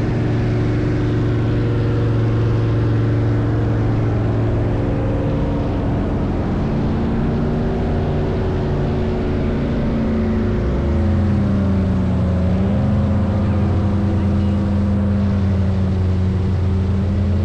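Fan boat (airboat) engine and large air propeller running steadily under way. The engine note dips and shifts about ten seconds in, then holds steady at its new pitch.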